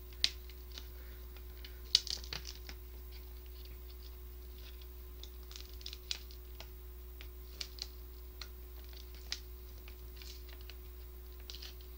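Scattered small clicks and crinkles of a stubborn lid being picked at and peeled off an instant rice-noodle cup, the sharpest click about two seconds in.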